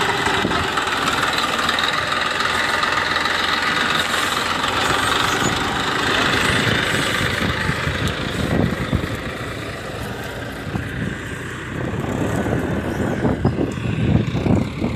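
Massey Ferguson 1035 DI tractor's three-cylinder diesel engine running steadily under load while it drags a steel levelling blade through loose sand, a little fainter past the middle.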